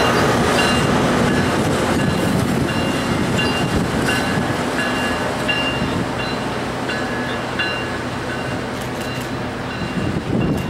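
Tri-Rail commuter train pulling away, its diesel locomotive pushing at the rear, with the engine running and the train noise slowly fading. A bell dings repeatedly throughout.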